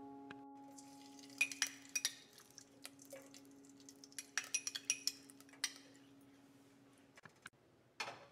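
Light clinks and taps of a spoon and metal against a stainless steel cooking pot, in two short clusters, as fat is spooned into it. One held background-music note fades away underneath.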